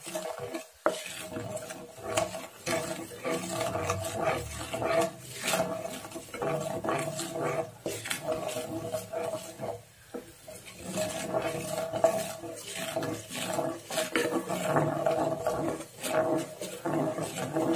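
Wooden spatula stirring and scraping melting sugar around a nonstick kadhai, many short strokes, while the sugar is cooked down to caramel without water for til chikki. A steady hum comes and goes underneath.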